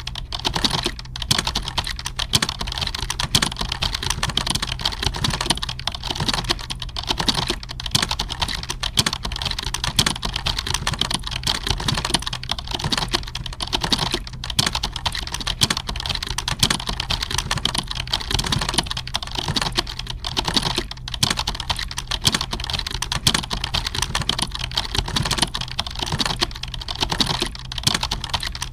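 Computer keyboard typing, with a dense, unbroken stream of key clicks and no pauses, over a steady low hum.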